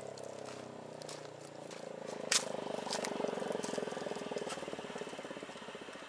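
Rotator motor of a Federal Signal 2001-130 DC outdoor warning siren running and turning the siren head: a steady motor hum with a fast rattling pulse through the middle, and one sharp click a little over two seconds in.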